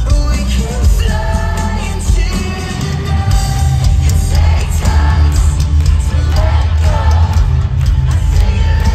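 Loud rock music with a heavy low end and a voice singing over it.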